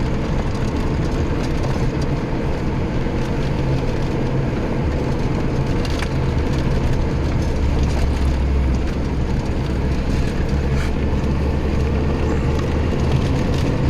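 GAZelle van driving over a rough dirt road, heard from inside the cab: a steady low engine drone with rattling and the odd knock from the uneven surface.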